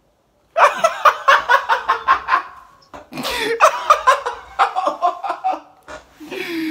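A young man laughing hard: two loud bouts of quick, rhythmic ha-ha pulses, starting about half a second in, with a short break between them.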